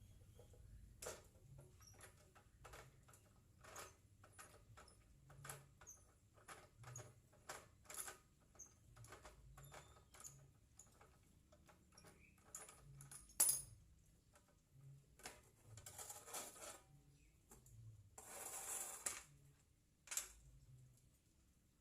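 Quiet, scattered clicks and light knocks of metal parts and hand tools being handled while a cut-off saw is taken apart. Near the end there are two short scraping sounds.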